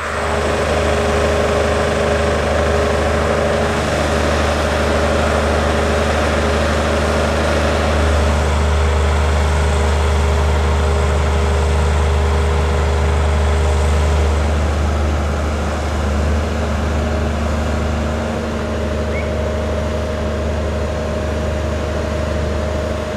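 Large diesel engine running steadily at a constant speed, a deep drone with a few steady tones above it.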